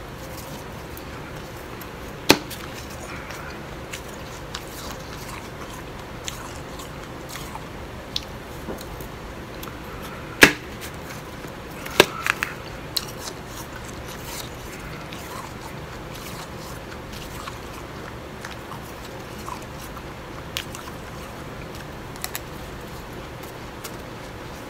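Close-up eating of blended ice: soft crunching and chewing of the icy slush, with a few sharp clinks of a metal spoon against the glass bowl, the loudest about two seconds in and twice around ten to twelve seconds in, over a steady low hiss.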